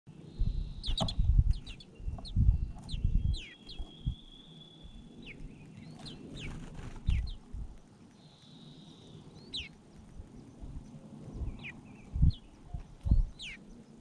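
Grey-capped greenfinches chirping at the nest: many short, high, falling chirps and a few longer held high buzzy notes. Low bumps and rumbles under them are the loudest sound.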